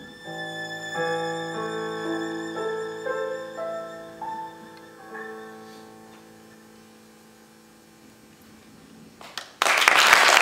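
Violin and piano playing a closing phrase of held notes that fades away. About nine and a half seconds in, audience applause breaks out suddenly and loudly.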